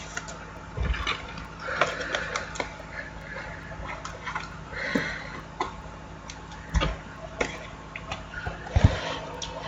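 Trading cards and their plastic and foil packaging being handled: irregular rustling and sharp clicks, with a few soft low thumps.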